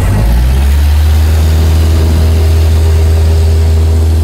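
Single-engine propeller airplane's engine and propeller heard from inside the cockpit, a loud steady low drone that settles about a quarter second in and holds at high power during the runway roll.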